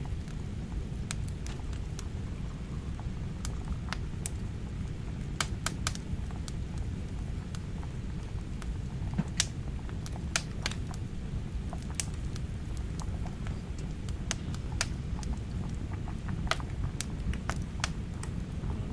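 Firewood burning in a small metal wood stove, crackling with irregular sharp pops, a few a second, over a steady low rumble.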